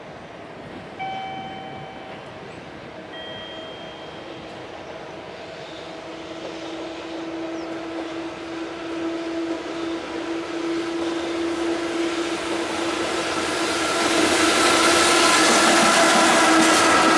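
JR Freight EF66 electric locomotive and its container freight train approaching and passing close by: a short horn-like toot about a second in, then a steady hum that grows louder as it nears, ending in the loud rolling noise of the loaded container wagons going past.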